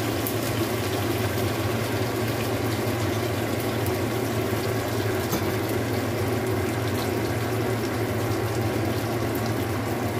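Sauce simmering and bubbling in a wok around stuffed bitter melon rings, over a steady low hum.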